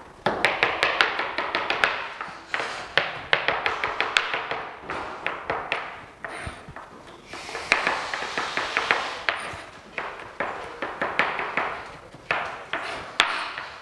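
Chef's knife chopping garlic on a plastic cutting board: runs of quick taps of the blade on the board, broken by short pauses.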